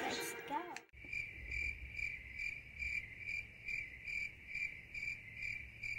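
Cricket-like chirping, an even high chirp repeated about two and a half times a second, starting abruptly about a second in after a sudden cut.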